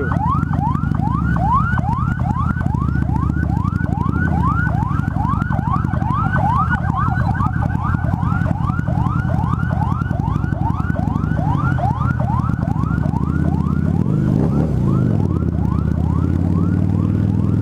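Ambulance siren sounding in quick rising sweeps, about three a second, fading out about fourteen seconds in. Under it is the steady low running of a Harley-Davidson V-Rod Muscle's liquid-cooled V-twin with Vance & Hines slip-on exhausts, picked up by a microphone inside the rider's helmet.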